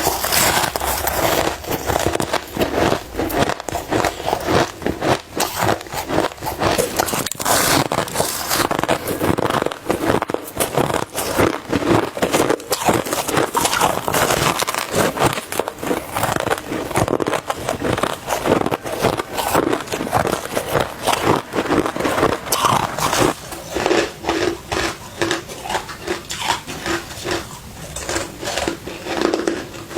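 Crushed ice being bitten and chewed close to the microphone: a dense, continuous run of crisp crunches, several a second.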